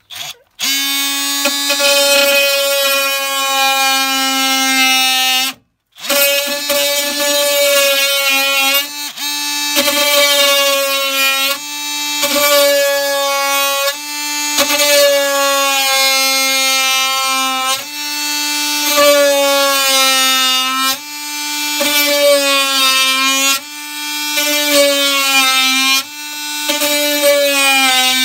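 DeWalt DSC355N cordless oscillating multi-tool running and cutting, a steady high buzz whose pitch sags each time the blade bites and recovers as it eases off, repeating every couple of seconds. It stops briefly about six seconds in, then starts again.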